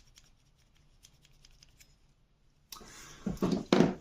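Light metal ticks, then, about three seconds in, louder scraping of steel feeler-gauge blades being worked into the slot of a bayan reed plate to gauge the reed's clearance.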